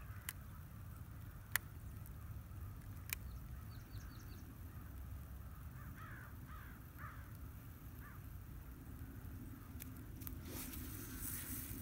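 A flock of birds flying overhead calling, with repeated short calls clustered about six to eight seconds in. A few sharp clicks come early, the loudest about a second and a half in, and near the end a rushing hiss as a cast is made with the baitcasting rod and reel.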